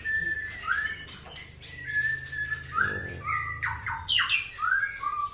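Young white-rumped shamas (murai batu) giving short, upward-sweeping squawking calls, a few at first and then coming thick and fast in the second half.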